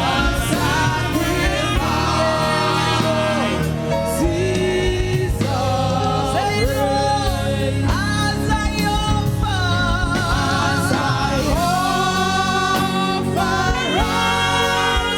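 Gospel praise-and-worship music: singing with long held, wavering notes over a steady band accompaniment.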